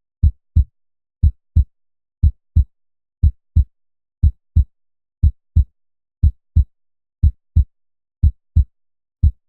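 Heartbeat: regular lub-dub double thumps, about one beat a second (around 60 beats per minute), each pair made of two short low thumps close together.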